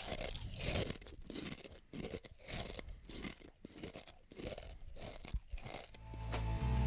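Parrotfish biting and scraping coral underwater with their beak-like fused teeth: a run of irregular crunches, roughly two a second. Music fades in near the end.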